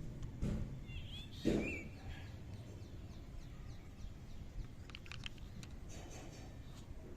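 Toy kitchen tools being handled: two dull knocks in the first two seconds, then scattered light clicks near the middle. A bird chirps briefly about a second in.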